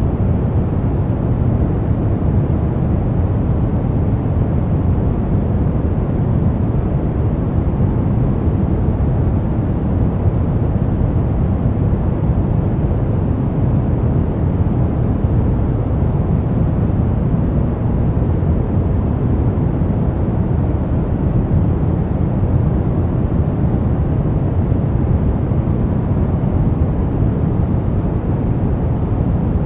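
Steady brown noise: a deep, even rumble-like hiss, strongest in the low end and fading toward the highs, unchanging throughout.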